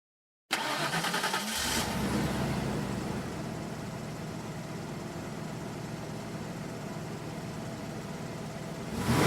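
A car engine being started: the starter cranks briefly and the engine catches, then idles steadily. It is revved up near the end.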